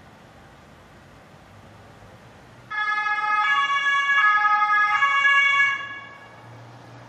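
Ambulance two-tone siren alternating between a lower and a higher note about every 0.8 seconds. It cuts in suddenly about three seconds in and fades out about three seconds later, over faint steady background noise.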